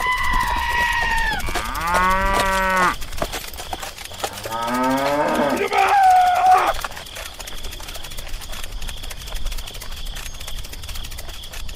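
Cows mooing: two low moos, each a second or more long, the second wavering in pitch. A higher, thinner call comes at the start and another about halfway, and after that only a faint hiss with light scratchy ticks.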